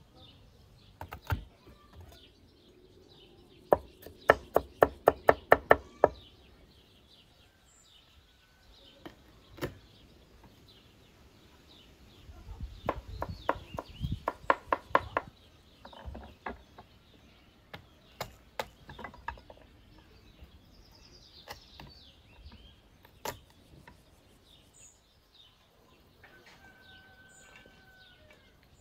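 Knife chopping on a wooden board in two quick runs of about four to five strokes a second, with single knocks in between. Birds chirp faintly in the background.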